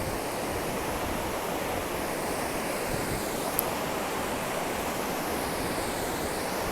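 Steady rushing of the Suiattle River, a big glacial river, with one brief click about three and a half seconds in.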